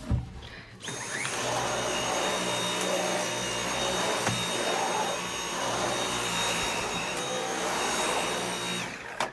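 Dyson V8 cordless stick vacuum cleaner switched on about a second in, its motor whine rising to speed. It then runs steadily with a high whine while vacuuming, with a brief knock midway, and is switched off near the end as the whine falls away.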